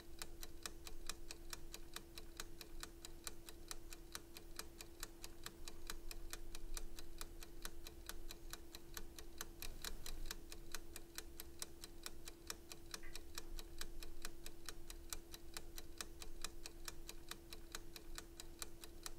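Ticking-clock sound effect: fast, even ticks, about four a second, over a steady low hum.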